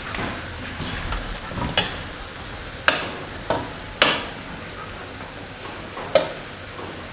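Chicken stir-frying in a pan: a steady sizzle, with a metal spatula knocking and scraping against the pan about five times.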